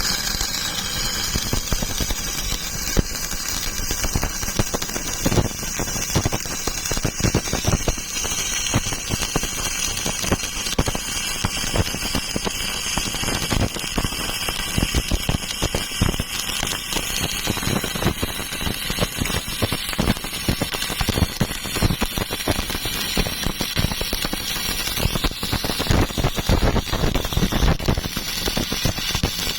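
Stick-welding arc on steel plate, a continuous dense crackle of irregular clicks.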